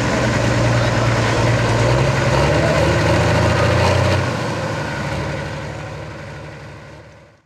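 Super stock pulling tractor's diesel engine running steadily at a high idle while hooked to the sled, then fading away over the last three seconds.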